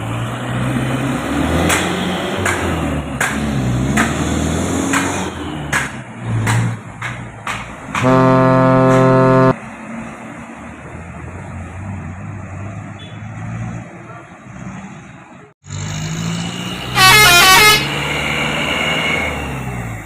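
Heavy trucks passing with engine rumble and knocks and rattles, then a loud, steady air-horn blast about eight seconds in that lasts a second and a half. After a brief dropout, a short, high, rapidly warbling multi-note 'telolet' horn sounds over the engine rumble.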